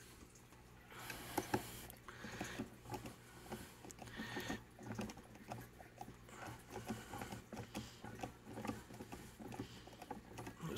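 Small screwdriver scraping and picking at the hub of a 3D-printed plastic impeller: faint, irregular scratching and clicking, with a few louder scrapes. The rotor has seized and partly welded itself in place after rubbing in its housing.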